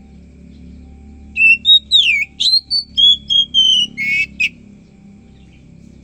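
Oriental magpie-robin (kacer) singing one loud phrase of whistled notes that glide up and down. The phrase starts about a second in, lasts about three seconds, and ends with a short buzzy rasp.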